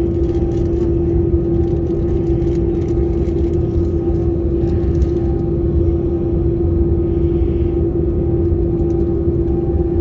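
Cabin noise inside an Airbus A330 taxiing: a steady low rumble from the engines and airframe with a constant hum, holding level with no spool-up.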